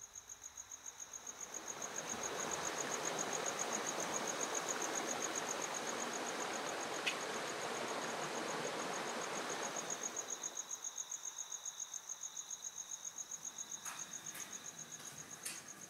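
A cricket chirping, a steady high pulsing trill at about four pulses a second. A rushing noise swells up about two seconds in and fades away about ten seconds in, and a few clicks come near the end.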